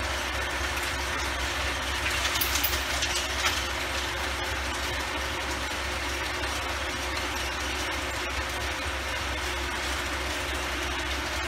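Antonio Carraro TRX 9900 tractor's diesel engine running steadily while driving its rear rotavator through the soil, with a brief spell of louder clatter about two to three seconds in.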